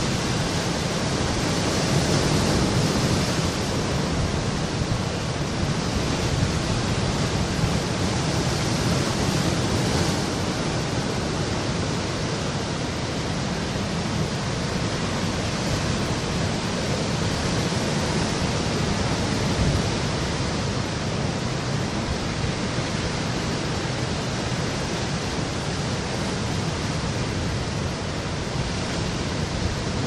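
Sea surf breaking over and washing among rocks on a rocky shore, a continuous rushing with gentle rises and falls as the waves come in.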